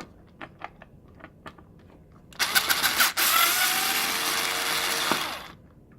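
A few light clicks, then a power drill runs for about three seconds, with a brief break, as it drills off a mount holding the microwave's keypad panel.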